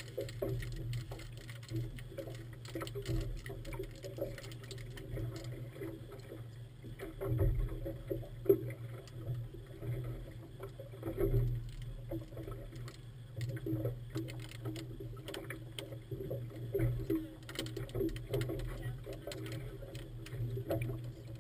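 A small motorboat's engine running steadily with an even, ticking hum, while short knocks and splashes of choppy water hit the hull, the sharpest about eight and a half seconds in.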